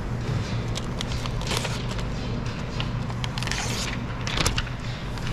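Sheet of window tint film crinkling and crackling in short bursts as it is handled and pulled over curved glass, over a steady low hum.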